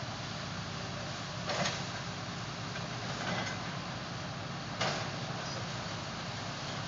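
Excavator working a debris pile: a steady diesel engine hum, with three short crunching scrapes of debris about a second and a half, three, and five seconds in.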